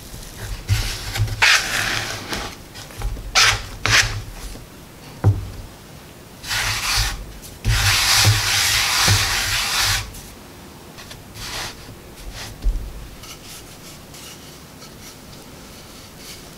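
Hands rubbing and brushing flour across a wooden board: short scrapes and a single knock as the dough is pressed and shaped, then one long sweeping brush across the floured board about eight seconds in.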